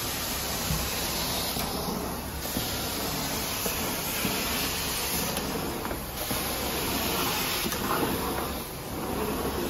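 Carpet-cleaning extraction wand drawn across carpet, its vacuum sucking with a steady hiss that brightens and eases every couple of seconds.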